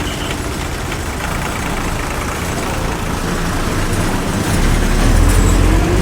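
Bus-stop street ambience of traffic noise, with a heavy bus engine's low rumble swelling and growing louder from about four and a half seconds in.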